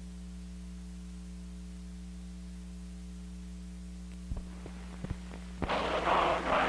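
Steady electrical hum with a few sharp clicks, then music with singing voices starts about a second before the end.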